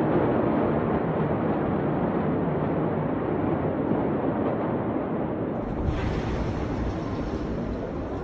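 Steady, wind-like rumble on a phone microphone. About six seconds in, a hiss and a deeper rumble join it.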